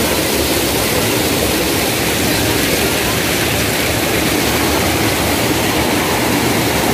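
Waterfall rushing steadily: a loud, even hiss that does not change.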